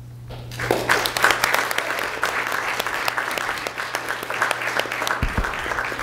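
Audience applauding in a meeting room, many hands clapping, starting about half a second in.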